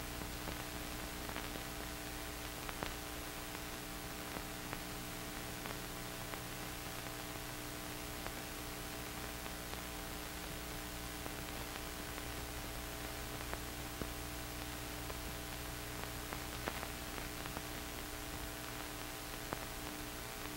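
Steady hiss and electrical hum with occasional faint clicks: the empty soundtrack of an old film transfer.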